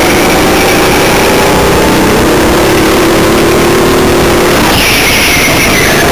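Onboard sound of an indoor rental go-kart's engine running hard, loud and constant, its pitch climbing from about two seconds in as the kart accelerates. Other karts' engines run close by.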